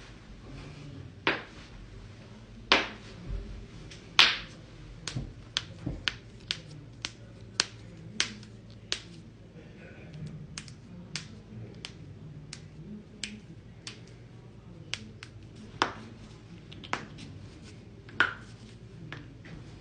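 Joints cracking: around thirty sharp pops at irregular intervals, a few of them much louder than the rest.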